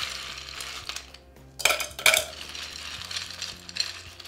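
Ice cubes being scooped by hand from a glass bowl and dropped into a tall tumbler, clinking and rattling against each other and the glass. Two louder clinks come at about one and a half and two seconds in.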